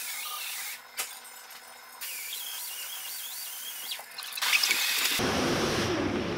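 A small power tool, likely a power ratchet, whining at a high pitch that wavers up and down while the rocker-shaft brackets of an Iveco Cursor 13 cylinder head are unbolted. From about five seconds in, a louder, rougher rattling noise starts suddenly.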